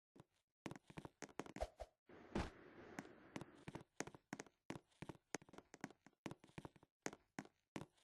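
Irregular sharp knocks, several a second, with a short burst of hiss about two seconds in.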